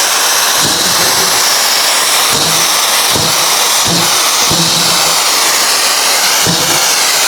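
A cutting torch flame hisses steadily as it cuts a stuck bearing collar off a shaft. Half a dozen low dull knocks come through the hiss.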